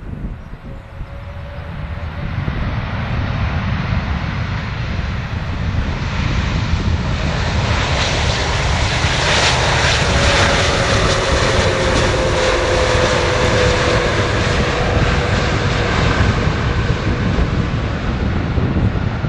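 Jet airliner on landing approach passing close by. The engine noise builds over several seconds into a loud, steady rush and rumble, with a whine that slowly falls in pitch as the aircraft goes past.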